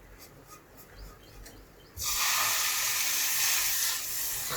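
Chopped tomatoes dropped into a pan of hot oil and roasted spice masala, setting off a sudden loud sizzle about two seconds in that carries on steadily; before that only a faint sizzle from the masala.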